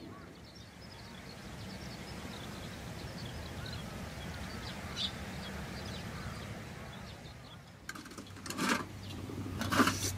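Open-air ambience with faint birds calling in the distance over a low steady background. Near the end come a few sharp clicks and clatters.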